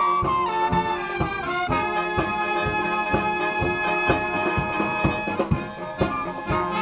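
Background instrumental music with brass-like melody over a steady beat.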